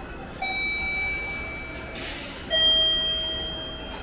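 Electronic station chime: two long ringing notes about two seconds apart, each fading slowly, the second louder, with a short rush of noise between them.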